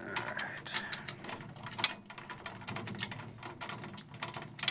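Rapid small metallic clicks and ratcheting as tension rods with Snap Lock fittings are turned with a drum key on a Sonor Signature steel snare drum, with one sharper click about two seconds in.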